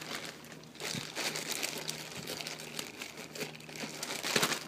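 Clear plastic bag crinkling and rustling as a headset is worked out of it by hand, loudest near the end.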